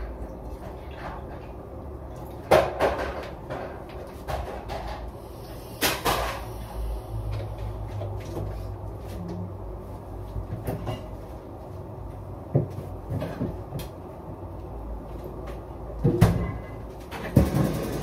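Kitchen clatter: cupboard doors, pans and utensils being handled, scattered clicks and knocks with a few louder bangs, one about two and a half seconds in, one about six seconds in and two near the end.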